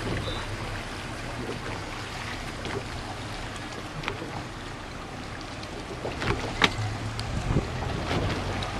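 Small boat's motor running steadily at low speed, with water splashing along the hull. A few sharp splashes or knocks stand out about six to seven and a half seconds in.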